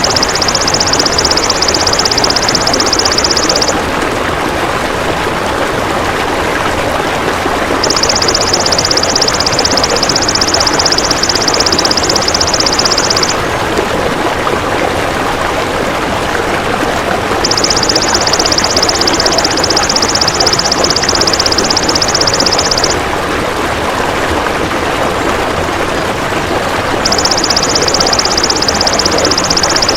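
Insect call of the golden grasshopper (belalang emas) used in bird-training tracks: a high, finely pulsed buzzing trill in bursts of about five seconds with pauses of about four seconds between them. A steady rushing background noise runs beneath it.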